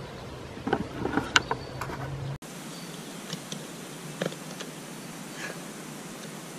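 Rustling and scattered soft clicks of a red deer hind's carcass being handled on dry bracken and pine litter, with a brief cluster of sharper clicks about a second in.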